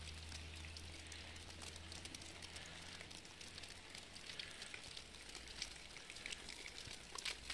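Faint, irregular pattering of wet falling snow, with small ticks that come thicker toward the end, over a low steady hum that weakens after a few seconds.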